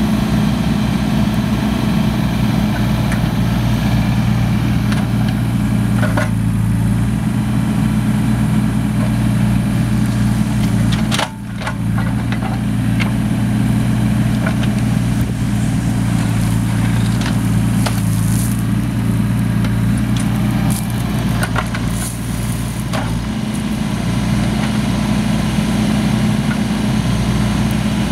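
Bobcat 325 mini excavator's diesel engine running steadily while the boom and bucket work, with scattered clatter and scraping of gravel from the bucket digging the pile. The engine note dips briefly about halfway through.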